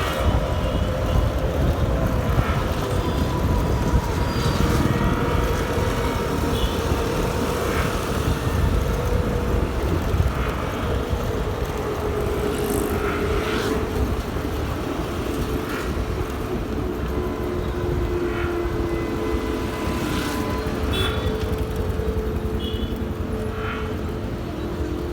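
Ola S1 Pro electric scooter's artificial Bolt-mode motor sound playing while riding: a synthetic engine-like tone that dips in pitch in the first few seconds and then holds steady. It sits over a steady low rumble. The rider finds it a little lighter than the Vintage-mode sound and close to the sound of a normal motorbike.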